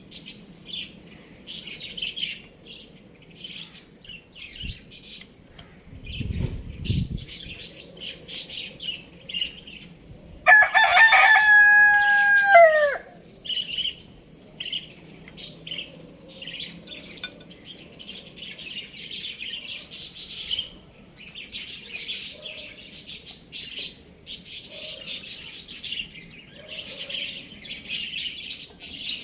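A rooster crows once, about ten seconds in: one loud call of about two and a half seconds that drops in pitch at the end. Around it, small birds chirp busily throughout, with a brief low rumble a few seconds before the crow.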